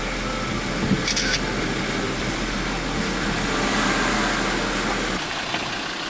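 A Land Rover 4x4's engine running as it wades through a shallow river, with water splashing around the wheels. There is a knock about a second in, and the sound changes suddenly near the end.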